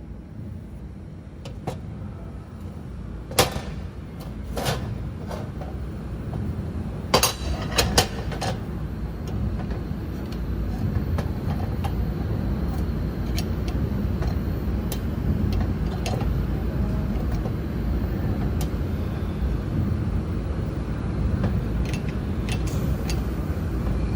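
2 kW fiber laser welder welding 8 mm stainless steel: a steady rushing noise that builds over the first ten seconds or so, broken by scattered sharp cracks, the loudest a few seconds in.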